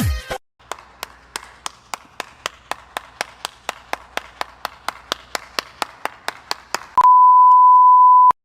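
A faint, even run of sharp clicks, about four a second, for some six seconds. It gives way to a loud, steady beep tone at one pitch, like a censor bleep, lasting about a second and a half.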